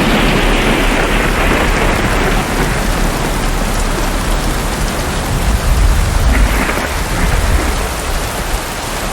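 Steady rain with a low rumble of thunder, swelling about six seconds in.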